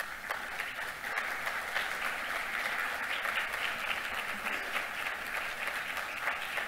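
Audience applauding: many hands clapping together, starting abruptly and keeping up steadily.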